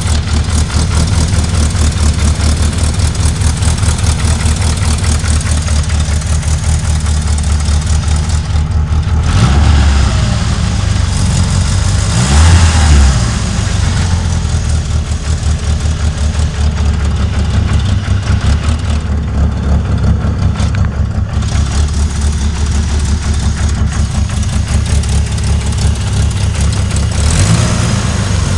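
Vehicle engine running with a rough, grinding transmission noise, revved briefly about three times, near ten seconds in, around twelve seconds and near the end. The owner suspects the transmission grinds because it is low on oil.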